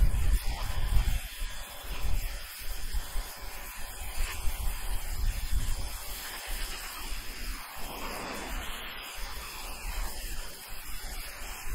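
Steady hiss of a Ryobi RY141612 1600 psi electric pressure washer's turbo nozzle spraying water onto asphalt roof shingles to strip off moss, with uneven low rumbling gusts, strongest in the first second or two.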